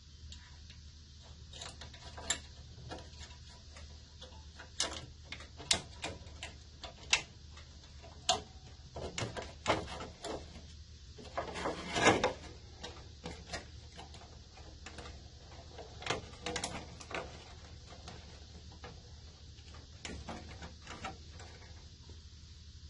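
Scattered light clicks and taps as a thin wire is worked through a hole in a steel mower deck and through a stiff white sheet, with a burst of crinkling about halfway through as the sheet is handled.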